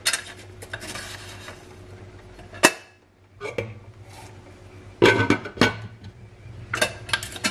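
Glass lid of a stainless steel pot clinking and clattering against the rim as it is lifted off and set back on, with a sharp click about two and a half seconds in and bursts of clinks near the end.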